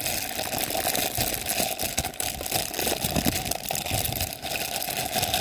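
Plastic packaging crinkling and rustling in a rapid, irregular crackle as a toy figure's parts are unwrapped by hand.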